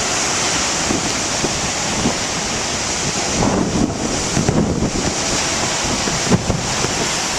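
Big ocean waves crashing and rushing on the shore, with wind buffeting the microphone through a plastic-wrap cover and one sharp thump of wind about six seconds in.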